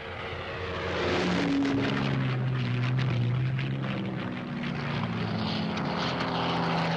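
Propeller-driven fighter plane's piston engine droning in flight, swelling in over about the first second and holding steady, its engine note shifting in pitch.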